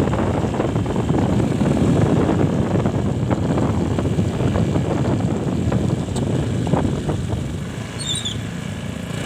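Riding noise from a motorbike on the move: wind buffeting the microphone over the rumble of the engine and road, easing a little near the end.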